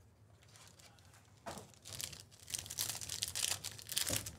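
Crinkling and tearing of a baseball-card pack's plastic and foil wrapper as it is torn open by hand. It starts about one and a half seconds in and comes in irregular crackles until just before the end.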